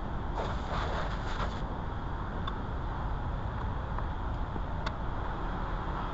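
Workshop noise: a steady low rumble with scattered light clicks, and a short burst of rapid rattling clicks about half a second in that lasts about a second.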